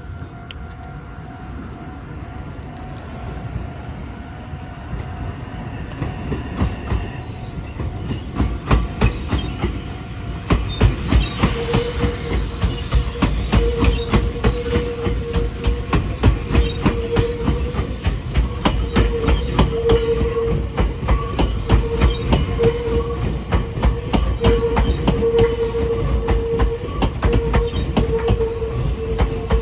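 Meitetsu 2200 series and 3150 series electric multiple units, coupled together, running past close by, growing louder from about six seconds in. The wheels clack rapidly over the rail joints, with a high squeal from the wheels that comes and goes through the second half.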